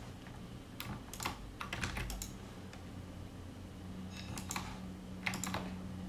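Faint, irregular clicks of a computer keyboard and mouse, a few at a time, over a low steady hum.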